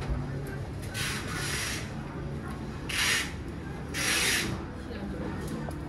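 Steady low hum and murmur of an indoor market corridor, broken by three short rubbing hisses: one about a second in, one at three seconds and one at four seconds.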